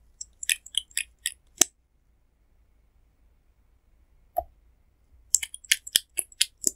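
Sharp plastic clicks from a liquid lipstick tube and its cap handled by the fingers: a quick run of about six clicks near the start, one duller knock around the middle, and another run of clicks near the end.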